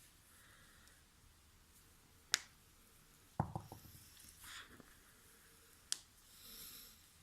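Spinal joints cracking during a chiropractic-style adjustment: a single sharp crack, then about a second later a quick run of several pops over a low thud, and another single sharp crack near the end.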